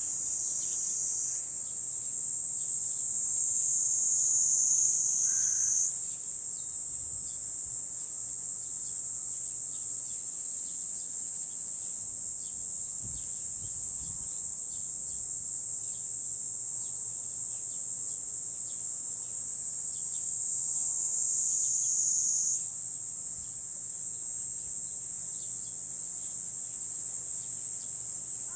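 A dense, steady, high-pitched insect chorus shrilling without a break. Its pitch sags a little twice, then jumps back up.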